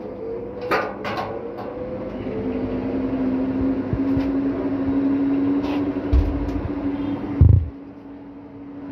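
A steady machine hum that slides slightly up in pitch over the first couple of seconds and then holds. Clicks and rattles of a stainless steel cabinet flap being handled come about a second in. Two low thumps come near the end, and the hum drops away suddenly at the second one.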